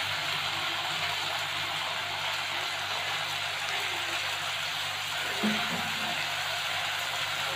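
Onion, capsicum and green chillies sizzling steadily in hot oil in a kadhai.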